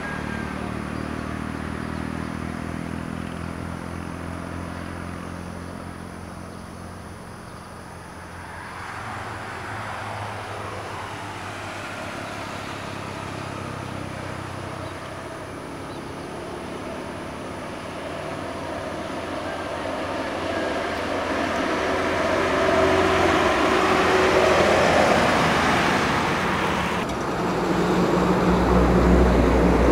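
Heavy diesel vehicles, a coach bus and trucks, passing on a highway: engine drone and tyre noise rise and fall, loudest as one passes close about three-quarters of the way through, with a deep engine sound building near the end.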